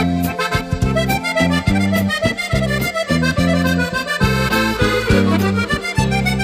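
Background music led by an accordion, with a steady beat of short bass notes.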